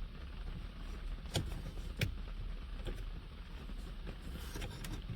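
A few sharp clicks and small knocks of a plastic car-interior trim piece being worked loose by hand, two distinct clicks about half a second apart, over a low steady hum.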